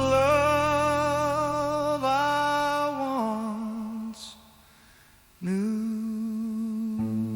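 Song: a voice holding long notes with vibrato over a low sustained backing. About four seconds in it fades almost to silence for about a second, then a held hummed note returns and guitar notes come in near the end.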